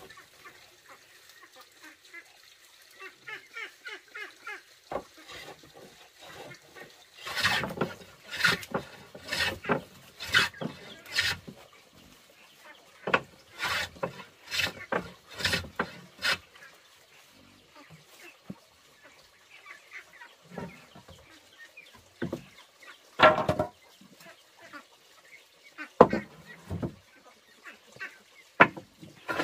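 Wooden hand plane shaving a plank in runs of short rasping strokes, about one a second, with pauses between runs.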